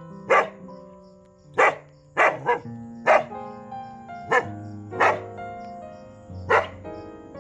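A street dog barking: about eight single, sharp barks at uneven intervals, some in quick pairs. Background music with held notes plays underneath.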